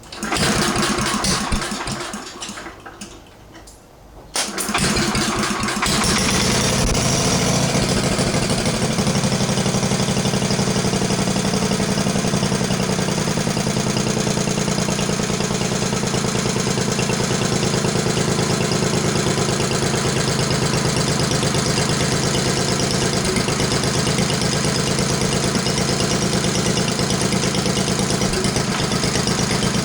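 Vintage cast-iron Briggs and Stratton 9 hp single-cylinder engine with a freshly rebuilt Flo-Jet carburetor: a first burst of running that dies away, then it catches again about four seconds in and runs steadily. It is being run up off idle to test the rebuilt carburetor's main jet.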